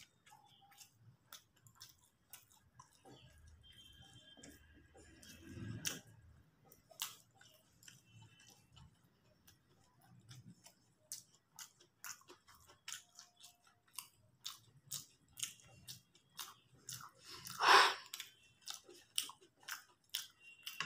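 Close-miked chewing of vegetable chowmein noodles: wet mouth clicks and smacks, with fingers picking at and tapping a steel plate. One louder, longer noise comes near the end.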